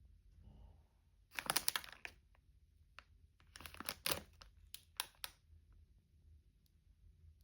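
Rustling and crinkling handling sounds in three short bursts, with a faint room hum between them.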